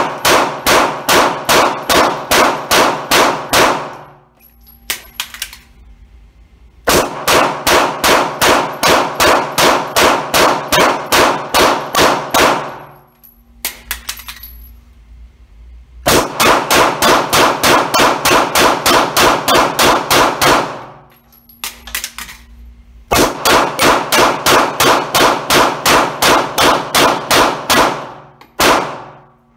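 Gen5 Glock 17 9mm pistol fired rapid-fire in four fast strings of about three to four shots a second, the shots echoing in an indoor range. Between strings there are pauses of a few seconds with small clicks and clatter of magazine changes.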